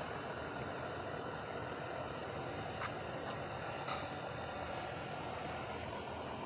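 Steady hiss of background noise, with two faint clicks about three and four seconds in.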